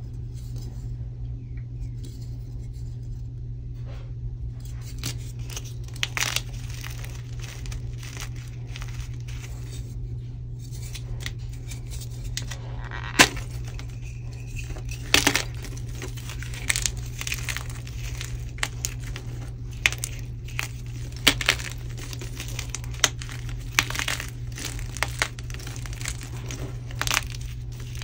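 A dyed, oiled gym chalk block being snapped and crushed by hand, giving crisp crunching and crumbling. A single sharp crack about halfway through as the block breaks, then many quick crunches as the pieces are squeezed. A low steady hum runs underneath.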